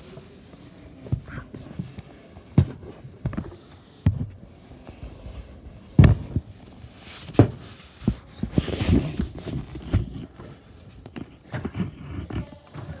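Close handling noise: fabric rustling against the microphone, with irregular knocks and thumps, the loudest about six seconds in.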